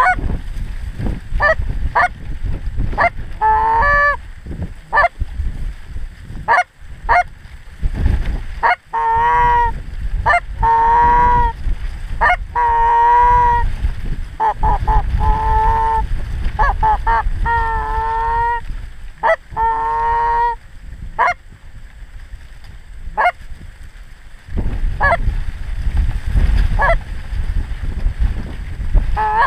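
Geese honking: many short honks, with a run of longer, wavering calls in the middle and a few scattered honks again near the end, over a low steady rumble.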